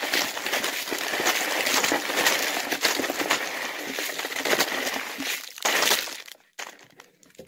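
Plastic packaging crinkling and rustling as a pack of mochi squishy toys is handled and opened, stopping about six seconds in.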